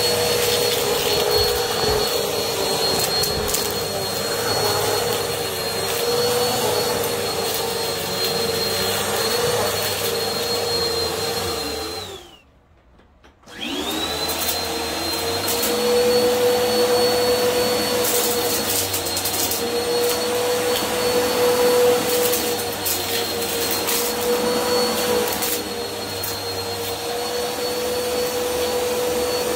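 Bissell upright vacuum cleaner running on carpet, a steady motor hum with a high whine, with scattered ticks and rattles of debris being sucked up. Near the middle the sound drops away for about a second, then comes back up.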